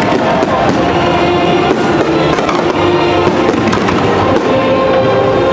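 Fireworks display: many sharp bangs and crackling bursts over loud show music with long held notes.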